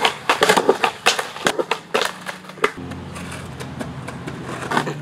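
Skateboard wheels and deck clattering on a concrete ledge and pavement: a quick run of sharp knocks and clacks. After about two and a half seconds a low steady hum takes over.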